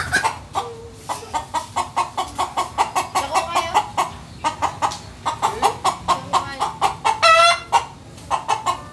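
Chickens clucking rapidly and agitatedly, stirred up after being chased, in a dense run of short clucks with one louder, drawn-out squawk about seven seconds in.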